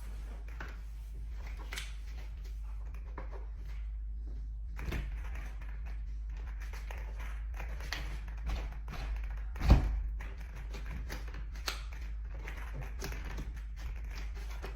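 Irregular taps, clicks and scrapes of a thin plastic strip cut from a milk jug being worked in the gap of a locked door, with the door rattling now and then. One loud thunk comes just under ten seconds in.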